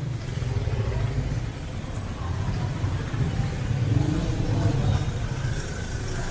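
Street traffic: motor vehicle engines running and passing by, a low rumble that swells a little around the middle.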